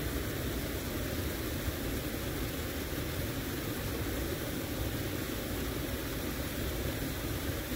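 Steady low rumble and hiss with a faint hum and no distinct events.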